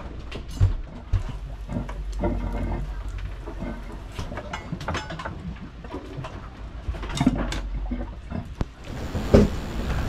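Strong wind rumbling on the microphone aboard a sailboat under way, with scattered knocks and clicks throughout.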